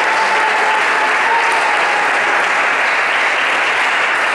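Spectators applauding, dense and steady clapping.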